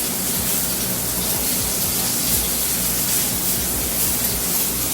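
Steady hiss of stovetop cooking, with a low hum beneath.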